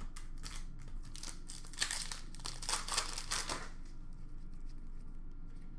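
Crinkling of a foil trading-card pack wrapper and rustle of hockey cards being handled: a dense run of quick crackles for about three and a half seconds, then only faint handling.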